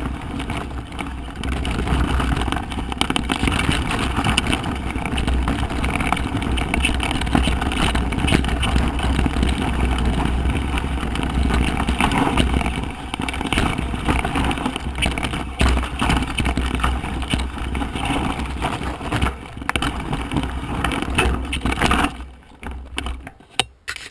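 Mountain bike descending a rocky, loose-stone trail: steady wind rush on the camera microphone with the tyres and frame rattling over the stones. The noise drops away sharply near the end.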